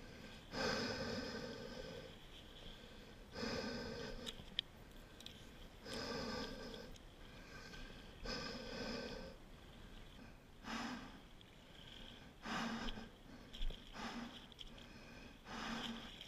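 A person breathing heavily, in long breaths about every two and a half seconds, then shorter, quicker breaths in the second half.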